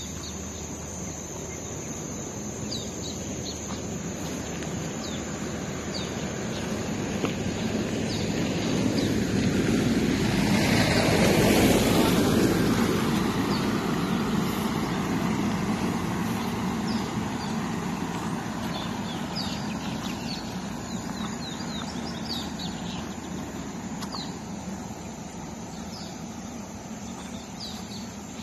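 A small open-top 4x4 passes close on a dirt road: engine and tyre noise on the gravel swell up, peak about halfway through, then fade as it drives off. Birds chirp now and then, over a steady high whine.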